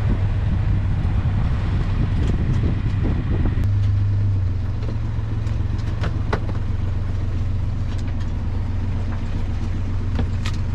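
A sailboat's inboard engine running steadily as a low hum, heard from the cockpit. Its note changes about four seconds in, with a few light knocks later on.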